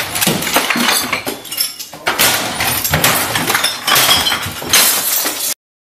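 Glass and bottles breaking as things in a room are smashed with a swung stick: a dense run of crashing impacts and shattering glass that cuts off suddenly about five and a half seconds in.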